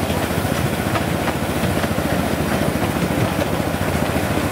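Miniature railway train running steadily along the track, with its locomotive's engine and the wheels heard as an even, continuous rumble from a passenger carriage.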